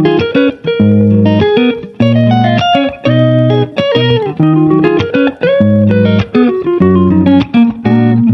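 Background music led by guitar: plucked and bent notes over a steady bass line.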